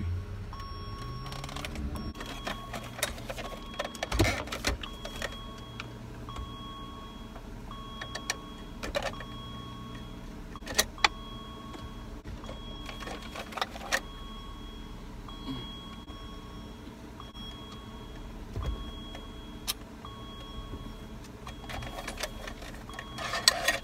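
Scattered clicks and knocks of screws being taken out and the radio section being worked loose from a car's dash, over a steady hum with a faint tone that pulses about once a second.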